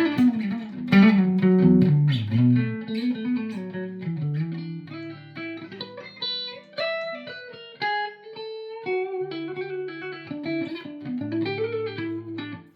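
ESP E-II Horizon electric guitar with coil-split EMG pickups, played on a clean channel with reverb from an Oceans 11 pedal: picked chords and single-note lines ringing into each other, stopping abruptly right at the end.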